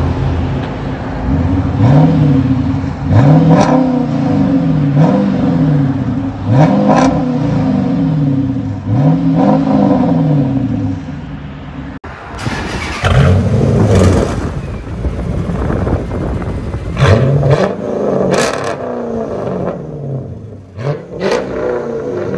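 Chrysler 300 HEMI V8 revved in about five quick blips from idle through a mid-muffler delete with the rear mufflers kept. About halfway through, a second car: a 2006 Chrysler 300C's 5.7-litre HEMI V8 revved several times through an exhaust with both the mid and the rear resonators deleted, settling back to idle between blips.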